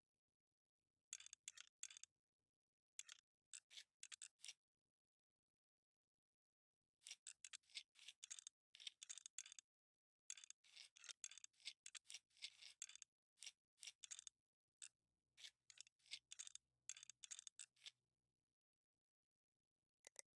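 Clusters of short, sharp clicks and scrapes, like parts and tools being handled during a computer build, with dead silence between the clusters. They come in a few bursts early on, then more densely over the middle and latter part before stopping.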